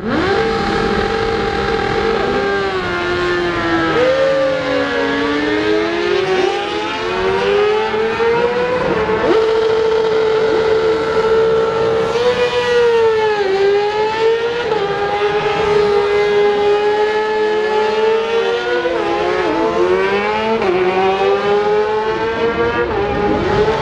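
Several racing motorcycle engines at high revs as the bikes pass on the track, their pitch climbing and dropping again and again as they change gear, with several engines overlapping.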